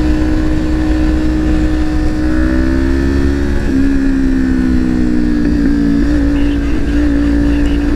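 Kawasaki Ninja 400 parallel-twin engine running at a steady pitch in low gear, with a second engine tone running alongside it for a few seconds. Constant low wind rumble sits under the engine.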